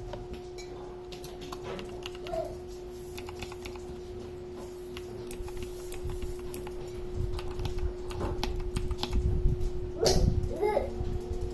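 Mechanical keyboard being typed on: a run of key clicks that gets busier and louder toward the end, testing the keys after the switches were cleaned.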